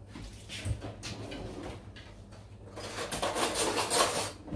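Rustling and light clicking handling noise, growing louder and denser about three seconds in.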